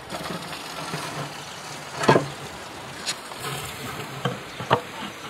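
Cookware being handled at a tandoor: a handful of short, sharp knocks and clinks, the loudest about two seconds in and the rest spread through the latter half.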